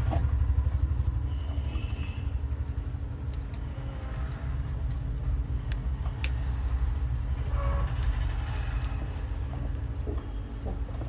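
A steady low rumble with scattered light clicks, typical of a ceiling-fan stator being handled while copper coils are pressed into its slots and wedged.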